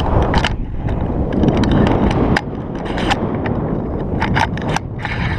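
Wind buffeting a GoPro's microphone in paragliding flight: a loud, uneven low rumble with many sharp clicks and crackles scattered through it.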